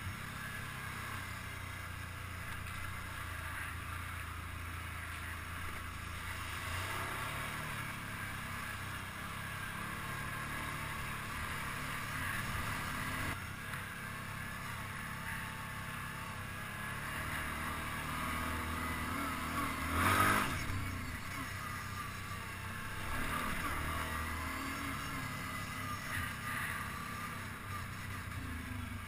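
ATV engine running steadily as the quad rides a rough dirt trail. One loud knock comes about two-thirds of the way through.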